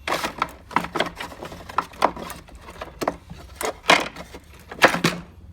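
Things being handled and rummaged through in a shop, a string of irregular clatters, knocks and rattles.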